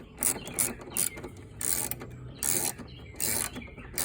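Socket ratchet clicking as it tightens an 8 mm battery hold-down bolt: a short burst of clicks on each return stroke, repeating about every two-thirds of a second.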